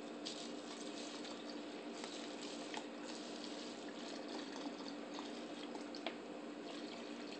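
Clear liquor poured in a steady stream from a large plastic jug into a plastic water bottle filling up over Skittles, with a few small clicks and ticks of the plastic.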